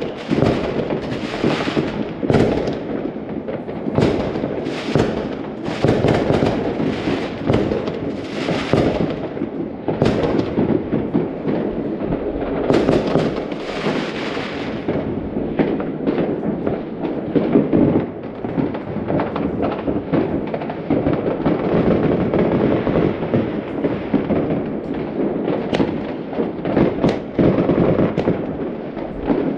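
Many fireworks and firecrackers going off at once, a dense, continuous crackle of overlapping pops and bangs with no let-up.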